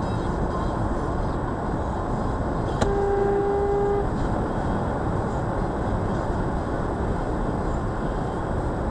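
Steady road and engine noise inside the cabin of a car driving at highway speed. About three seconds in there is a click, then a single steady electronic beep lasting about a second.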